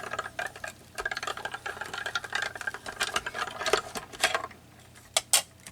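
Manual die-cutting machine being cranked through a die on paper, a rapid rattling clicking, then two sharp clicks near the end.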